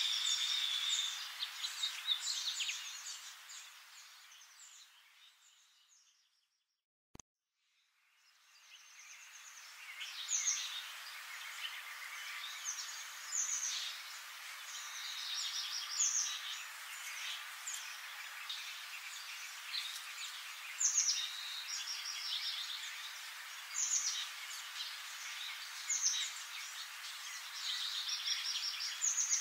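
Birdsong: a steady stream of small birds chirping and calling. It fades out to silence about six seconds in, a single click sounds in the silence, and it fades back in over the next couple of seconds.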